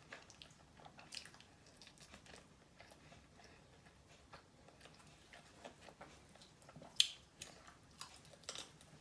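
Close-up chewing and biting of KFC fried chicken: soft, irregular crunching and wet mouth clicks, with one sharper crunch about seven seconds in.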